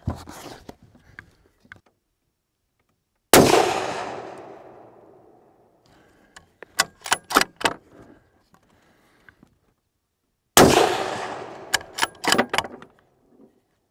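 Two shots from a Tikka T3x Tac A1 bolt-action rifle in 6.5 Creedmoor, about seven seconds apart, each with a long fading echo. After each shot comes a quick run of sharp metallic clicks as the bolt is worked to chamber the next round.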